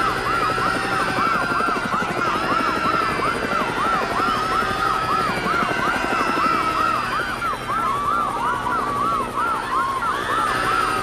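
Police sirens on a fast yelp, about three or four up-and-down sweeps a second, over a helicopter's rotor beat; a second siren overlaps from about seven to ten seconds in.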